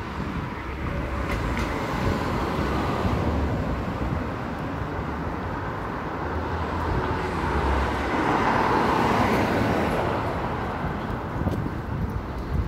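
Street traffic noise, with a car passing that swells about eight seconds in and then fades, over a steady low rumble.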